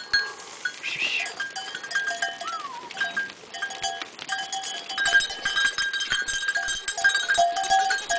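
Bells on a herd of goats clanking and ringing over and over, busier from about five seconds in, with a goat bleating about a second in.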